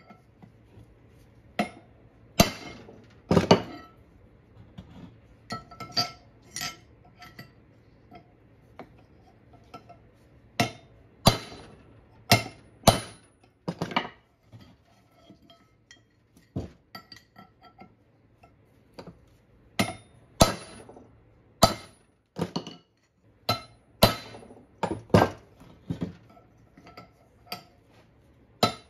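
Hammer striking a chisel held against the bearing end of a Chrysler 8 3/4 drive axle shaft, working the old bearing off. Sharp, ringing metal clinks come at an irregular pace, a blow every second or so with short pauses between runs.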